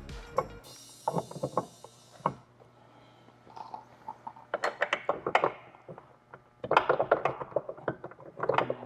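Hand tools clicking and knocking against metal in short clusters as the bolts and nuts of a tow-hitch latch block are fitted and tightened.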